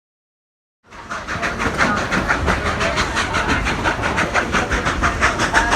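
Narrow-gauge steam train under way, starting abruptly about a second in: a loud, even, fast beat of about five strokes a second with hiss on top and a deep rumble beneath.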